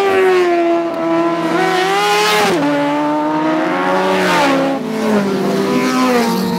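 Sport motorcycle engines revving high, their pitch climbing and then dropping sharply twice, as with gear changes.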